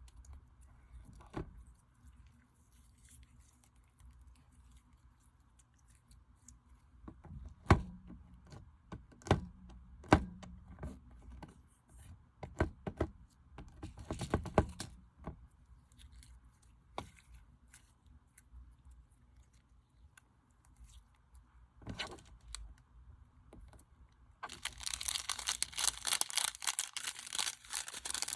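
Slime being handled by hand: scattered sticky clicks and pops, then a dense crackling starting a few seconds before the end.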